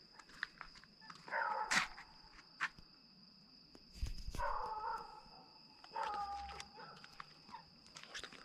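A dog close by whining in three short calls, each falling slightly in pitch and spaced a couple of seconds apart, with a few knocks and scuffs of footsteps between them.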